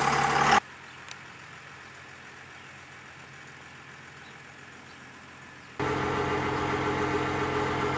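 1996 Dodge Ram 2500's Cummins diesel engine idling steadily. About half a second in it drops suddenly to a faint, distant idle, then comes back loud near six seconds in.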